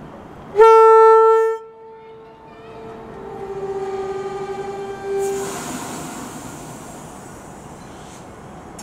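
Train horn blast, loud and about a second long, from the Enterprise train's driving van trailer 9001, followed by a fainter, lower steady tone for a few seconds. A burst of hissing air comes about five seconds in.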